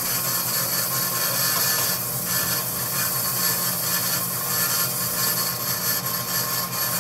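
A 20-inch Jet bandsaw with a carbide-tipped Laguna Resaw King blade running and cutting through a dogwood log. A steady motor hum sits under an even hiss from the blade in the wood.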